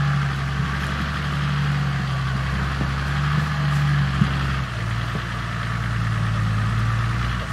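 Toyota Land Cruiser HDJ80's 4.2-litre turbo-diesel engine running at low revs as the truck crawls through mud, its note dropping to a lower steady pitch about four and a half seconds in.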